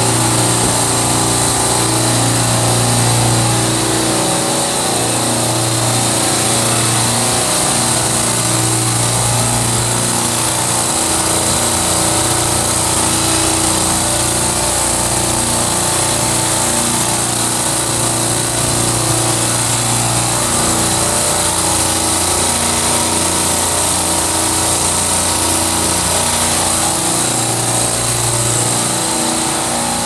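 Supermarket refrigeration rack's bank of semi-hermetic compressors running: a loud, steady mechanical hum with an even hiss over it.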